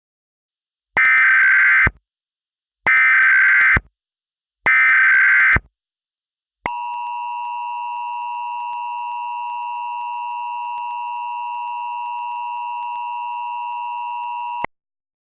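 Emergency Alert System signal. First come three short bursts of SAME header data tones, each about a second long, buzzing and warbling. Then the two-tone EAS attention signal (853 and 960 Hz) sounds steadily for about eight seconds and cuts off.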